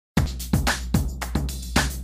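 Music starting abruptly after a split second of silence: a steady beat with a heavy thump about two and a half times a second over a held bass note.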